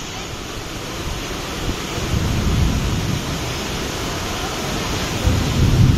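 Heavy rain pouring down in a steady hiss, with low rumbling swells about two seconds in and again near the end.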